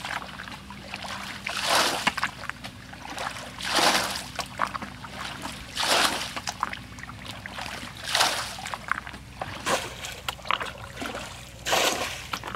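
A muddy puddle being bailed with a plastic bucket: a short splash of water about every two seconds as each bucketful is scooped up and thrown out.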